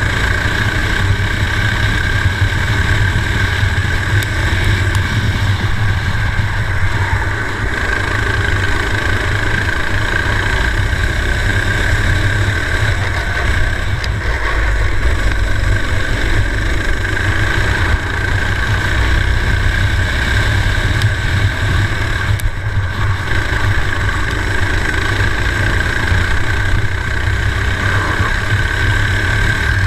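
Racing kart engine running at speed through a lap, heard from a camera mounted on the kart, a steady engine note with a brief dip about 22 seconds in.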